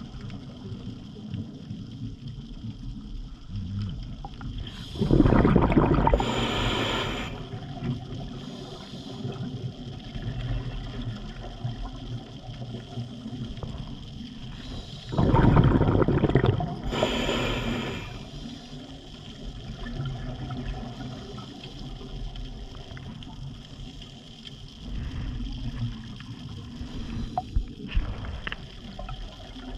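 Scuba diver breathing through a regulator, heard underwater on the diver's camera: two slow breaths about ten seconds apart, each a loud bubbling rumble of exhaled air followed by a higher hiss, over a low steady rush of water.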